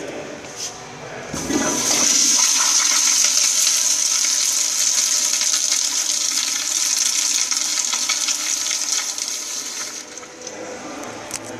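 Kohler commercial flushometer toilet flushing. A short clunk as the valve opens about a second and a half in, then a loud rush of water through the bowl for about eight seconds, easing off to a quieter flow near the end.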